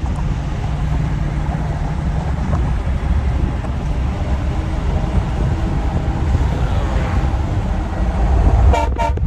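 Steady low engine and road noise of a Ford F-250 pickup driving, heard from inside the cab. Near the end a brief, louder sound with a few pitched tones comes in.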